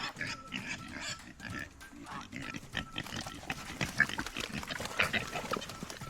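Pigs grunting in a quick, irregular run of short sounds.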